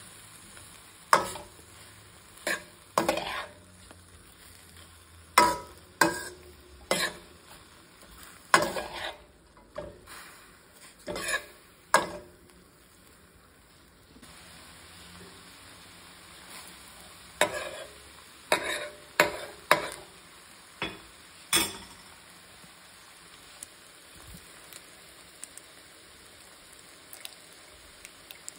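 Metal spoon scraping and knocking against a stainless steel pan as vegetables are stir-fried without oil, with a faint steady sizzle underneath. The stirring comes in two spells with a pause of a few seconds between them, and it dies down to a few light ticks for the last several seconds.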